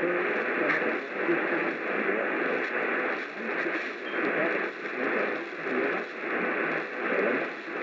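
Weak AM radio signal buried in static and hiss that swells and fades about once a second, with no clear words coming through.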